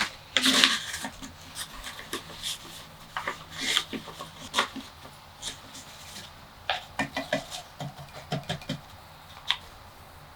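Scattered light clicks, taps and knocks of objects being handled, with a cluster of duller knocks about seven to nine seconds in.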